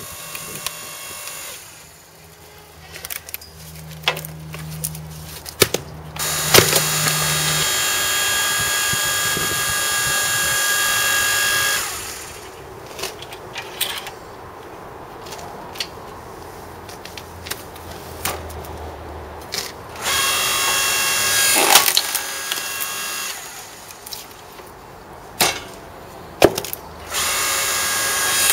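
Electric hydraulic log splitter: its motor and pump run with a steady whine in three loud stretches of several seconds, as the ram drives a log through the wedge. Between the stretches come sharp cracks and knocks of splitting wood and of the machine being handled.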